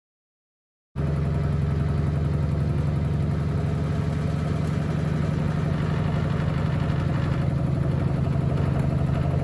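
Front-loading washing machine running through a wash cycle: a steady, even motor hum that cuts in abruptly about a second in.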